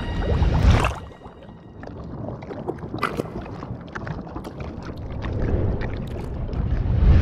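Animated-film sound effects: a loud rushing swell that cuts off about a second in, then a low rumble scattered with short clicks that grows louder again near the end.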